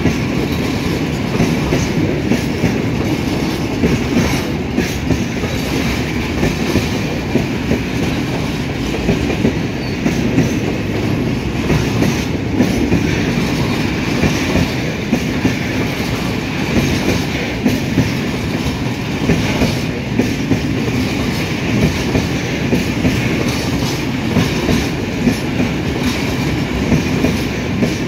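Railway tank wagons of a freight train rolling past close by: a loud, steady rumble of steel wheels on rail, with repeated sharp clacks as the wheels cross rail joints.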